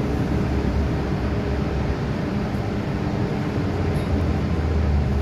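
MTR M-Train electric multiple unit heard from inside the car as it pulls in along an underground station platform: a steady rumble of wheels and running gear with a faint low hum, swelling a little near the end.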